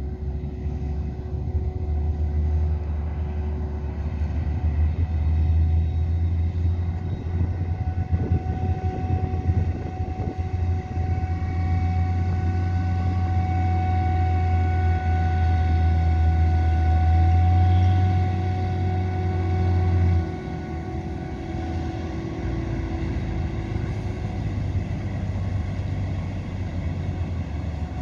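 Claas Jaguar forage harvester and a Fendt tractor with a Pöttinger loader wagon running while chopping maize. It is a heavy, steady engine drone with a steady whine over it. About twenty seconds in, the deep drone drops away and a lighter running sound carries on.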